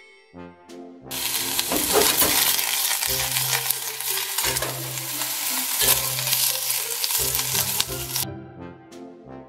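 Cut cabbage sizzling as it is stir-fried in a hot stainless steel pot and stirred with chopsticks. The loud sizzle starts about a second in and stops shortly before the end, with brass background music on either side of it.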